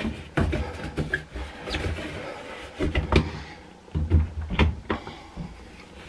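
Microfiber cloth scrubbing and wiping the rubber door gasket and plastic drum rim of a front-load washing machine: irregular rubbing strokes with a few soft knocks against the machine, the loudest about three and four seconds in.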